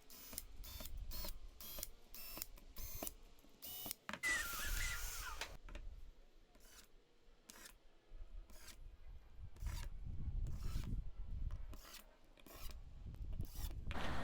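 Scattered light clicks and taps, with a brief scraping rub about four seconds in.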